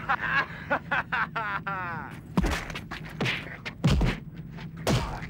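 Film-scene sound effects: a quick run of clicks and a short sliding tone, then four heavy thuds a little under a second apart.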